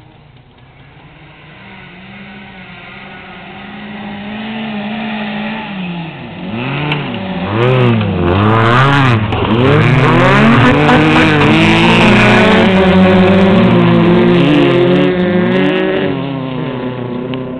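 Rally car engines running hard on a dirt track. They build from faint to loud as they approach, rise and fall in pitch as the drivers rev, lift and shift through the loudest passage, then fade away near the end.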